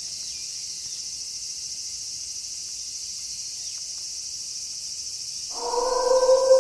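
Night insect chorus of crickets chirring steadily. About five and a half seconds in, a wolf starts a long howl that holds an even pitch.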